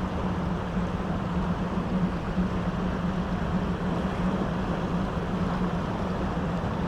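Steady power-station ambience: a constant low hum over an even rushing noise.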